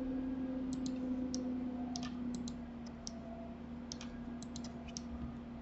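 Scattered light clicks from a computer mouse and keyboard, irregularly spaced, about a dozen, over a steady low hum.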